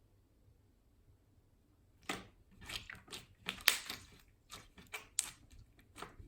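Frosted slime squeezed and pressed by hand, giving a quick irregular string of sharp pops and clicks from about two seconds in.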